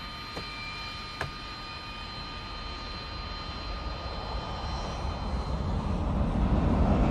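Military jet taking off: a steady high engine whine, then a deep rumble that grows steadily louder over the last few seconds. Two short clicks come in the first second or so.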